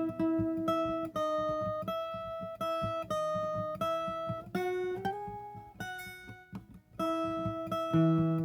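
Viola caipira played solo: a plucked melody of held single notes over a quick, steady plucked accompaniment lower down, with a short slide up in pitch partway through.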